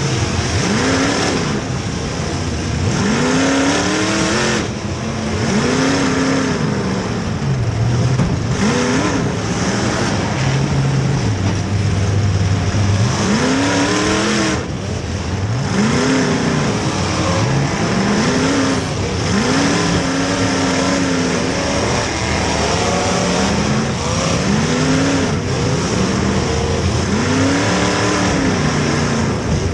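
Demolition derby cars' engines revving up and down over and over, each rev rising and falling every second or two, over a constant noisy din.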